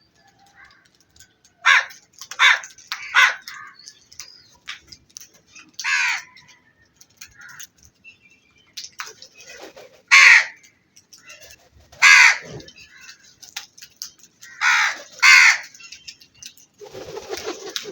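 Crows cawing: about eight harsh caws, a quick run of three in the first few seconds, then single caws spaced a few seconds apart and a pair near the end.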